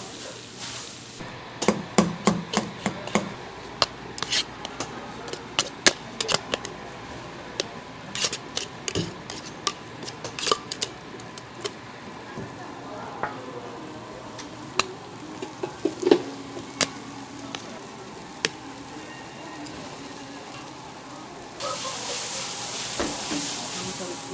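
Street-food cooking: a run of sharp clicks and taps of utensils with some stirring, then a loud steady sizzle of frying that starts suddenly near the end.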